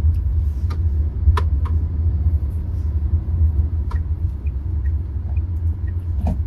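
Steady low rumble of a Tata Nexon's 1.2-litre turbo-petrol three-cylinder engine and tyres on the road, heard inside the moving car's cabin, with a few light clicks.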